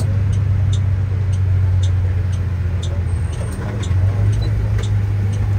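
A vehicle in motion, heard from on board: a steady low engine and road drone, with light, regular ticks about twice a second.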